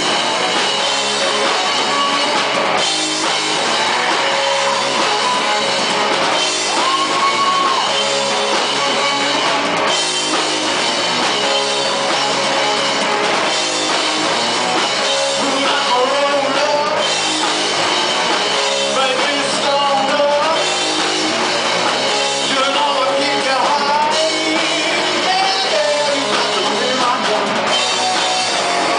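Live rock band playing a song: electric guitar and drum kit, with a voice singing over them.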